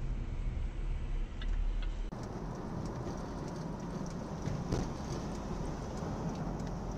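Dashcam recording of a car driving: steady engine and road noise heard from inside the cabin. About two seconds in it changes abruptly to a thinner, hissier road noise as a different dashcam's recording takes over.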